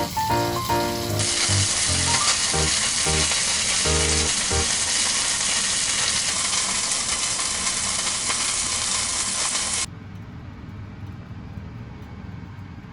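Food frying in a pan: a loud, steady sizzle from about a second in that stops abruptly near ten seconds, leaving a much fainter hiss. Light background music plays over the first few seconds.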